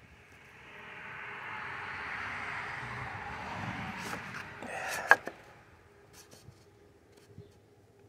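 A hand tool scraping along a wooden door frame for about four seconds, then several sharp knocks on the wood, the loudest about five seconds in, with a few lighter taps after.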